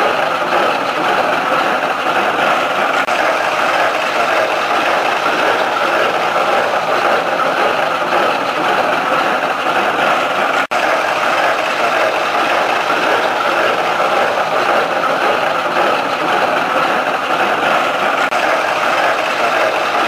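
Low-pressure hay baler working behind a tractor: a steady mechanical clatter of its moving parts mixed with the tractor engine running. The sound drops out for a split second about halfway through.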